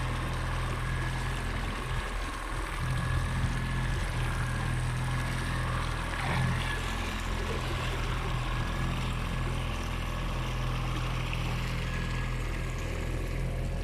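Fishing boat's engine running steadily under way, a constant low hum, with the rush of water and wind over it.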